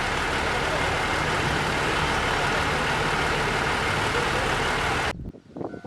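KiHa 40 diesel railcar's engine running steadily at idle; the sound cuts off suddenly about five seconds in.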